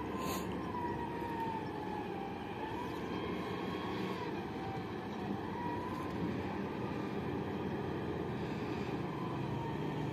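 Distant siren wailing, its pitch drifting slowly and unevenly up and down, over a steady low rumble.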